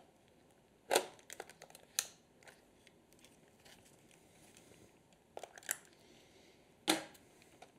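Handling noise of a Helios 44-2 lens on an M42-to-Canon adapter being fitted to a Canon DSLR's lens mount: several short sharp clicks and knocks of metal and plastic parts, the loudest near the end, with faint rustling between.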